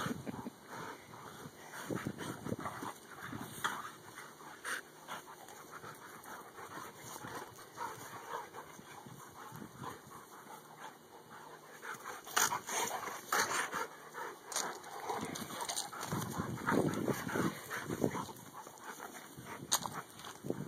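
Two dogs play-fighting: panting and rough play vocalizing, with scuffling and mouthing noises. The louder bouts come about twelve seconds in and again near the end.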